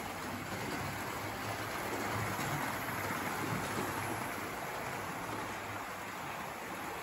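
Hornby OO gauge model train running along the layout track: a steady rushing rumble of wheels on rail and motor that swells a little around the middle as the train passes close.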